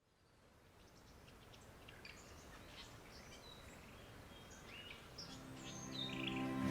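Birds calling: scattered short chirps and whistles over faint background noise, fading in from silence. Soft music with long held notes comes in about five seconds in and grows louder.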